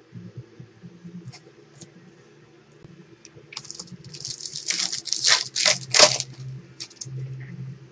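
Clear plastic trading-card pack wrapper crinkling and tearing as the pack is opened: a run of irregular crackling bursts starting about halfway through, loudest near the end, after a few faint clicks of cards being handled.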